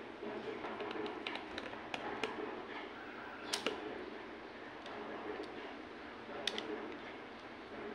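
Thick banana cake batter being scraped around a mixing bowl with a silicone spatula and poured into a parchment-lined loaf tin: soft, wet scraping and sliding, with a few sharp clicks and taps along the way, two close together about halfway through and one more late on.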